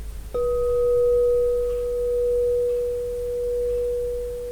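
A single struck, bell-like tone starts about a third of a second in and rings on steadily with a slow waver in loudness; a fainter, higher overtone above it dies away after about two seconds.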